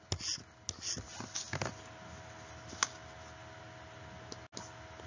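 A pen or stylus scratching short strokes on a writing tablet, the double underline drawn under the answer, then a single sharp click near the middle. A faint steady hum runs underneath.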